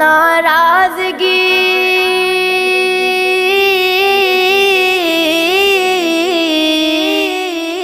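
A solo voice singing an Urdu devotional poem about parents (a nazm). It sings the word "naraazgi" and then holds one long, ornamented note with small pitch turns, with no instruments.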